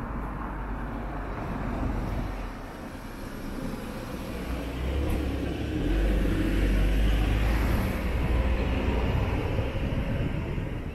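Outdoor street rumble, as of a car passing, swelling about six seconds in and easing toward the end.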